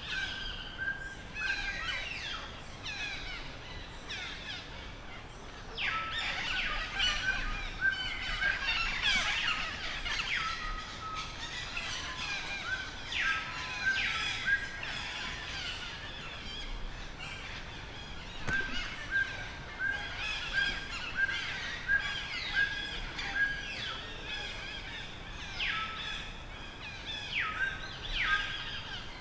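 Birds chirping and calling, with runs of a short repeated note and many quick chirps over each other.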